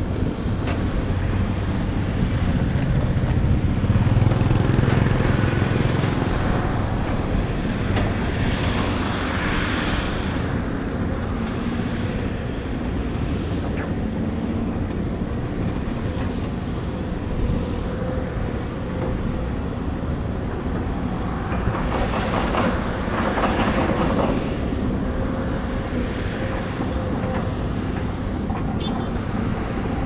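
Diesel engines of crawler excavators running steadily under load, with dump trucks alongside, making a continuous low engine sound. Twice it swells into a louder stretch of rattling, clattering noise, about a third of the way in and again about three-quarters through.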